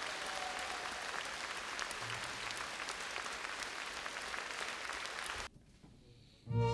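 Theatre audience applauding steadily. The applause cuts off suddenly about five and a half seconds in, and an orchestra with strings starts up right at the end.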